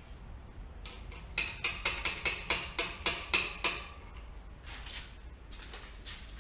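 A quick run of about ten sharp clicks, roughly four a second, starting about a second and a half in and lasting a couple of seconds, with a few fainter clicks a little later.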